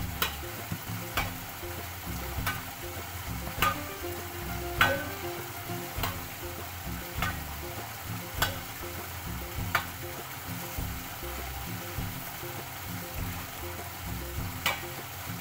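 Sharp strikes of a hand tool on stone or earth, about one every second and a quarter, pausing for a few seconds before a last strike near the end. Under them run a steady hiss and background music.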